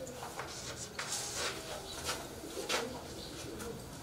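Chalk tapping and scraping on a blackboard in a few short strokes as a letter is written.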